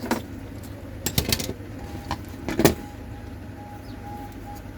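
A few light clicks and taps from handling small phone parts and tools during a screen repair, the loudest about two and a half seconds in, over a steady background hum.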